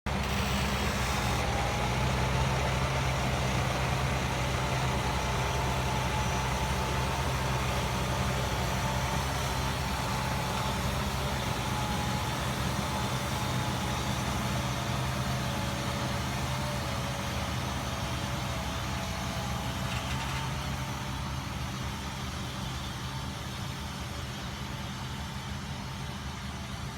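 Large farm tractor's diesel engine running steadily while working a land-levelling job, with a whine over the engine hum. The sound gradually fades as the machine moves away.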